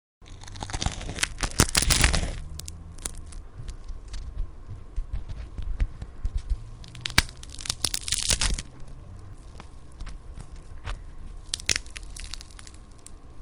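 Bone-crack sound effect: clusters of crunching, cracking snaps over a low rumble. The densest and loudest cluster is about one to two seconds in, another comes around seven to eight seconds in, and a few more near the end before the sound cuts off suddenly.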